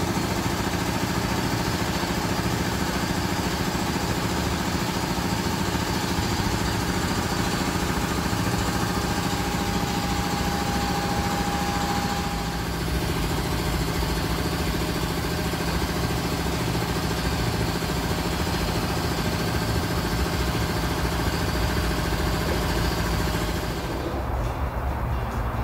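Machinery running steadily, an even engine-like hum. A thin high whine joins it for a few seconds in the middle. The sound changes abruptly about halfway through and again near the end.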